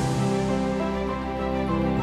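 Soft background music of held, slowly changing notes.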